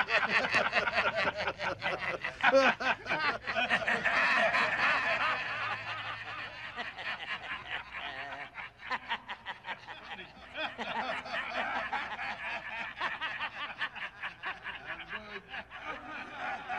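Several men laughing hard together at a joke, in rapid pulsing bursts, loudest over the first few seconds and then carrying on a little quieter.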